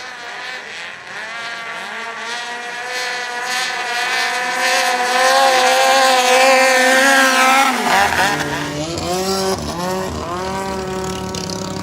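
Thai longtail racing boat's engine at full throttle, growing louder as it approaches. About eight seconds in its pitch drops sharply as it passes by, and a lower, wavering engine note follows.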